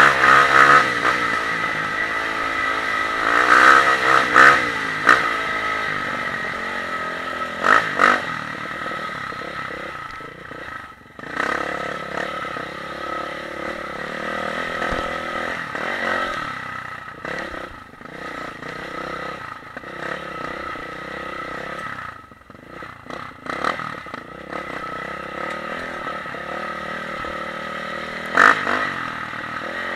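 Dirt bike engine running and revving as it is ridden over rough ground, the pitch rising and falling with the throttle, with clatter from the bike jolting over bumps. It is loudest in the first few seconds, around eight seconds, and again near the end.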